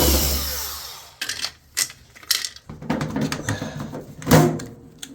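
A power driver whirs and winds down at the start, then scattered clicks and light metallic clatter of parts and screws being handled, with one louder knock about four seconds in.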